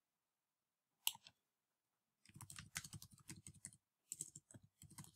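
Faint typing on a computer keyboard: a single click about a second in, then two quick runs of keystrokes.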